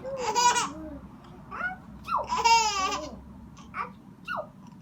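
A baby laughing and squealing in two high-pitched bouts, one right at the start and one a little after two seconds in, with short softer babbling sounds between and after.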